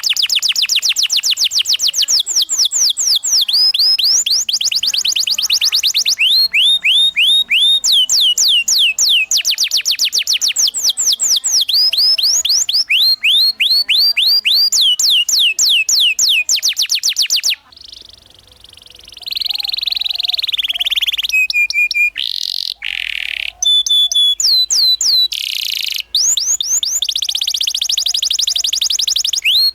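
Canary singing a loud, fast song of repeated downward-sliding whistled notes, several a second, in changing phrases, with a fast rolling trill near the end. The song drops out briefly about two-thirds of the way through, then comes back in short pieces with abrupt cuts.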